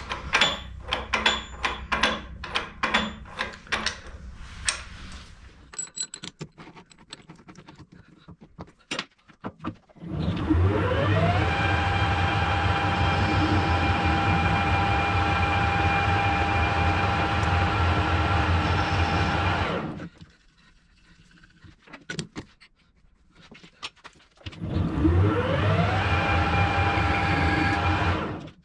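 For the first several seconds, light metallic clicks and rattles come from nuts being fitted by hand onto brake-hanger bolts. Then a metal lathe starts, its whine rising as the chuck spins up to speed, runs steadily for about ten seconds and stops. After a few clicks it starts again, rises the same way and runs steadily until it stops near the end.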